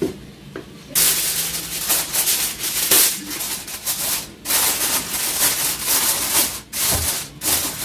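Aluminium foil crinkling and rustling as a sheet is spread over a glass bowl and pressed down around its rim. It starts about a second in and comes in uneven bursts with short pauses.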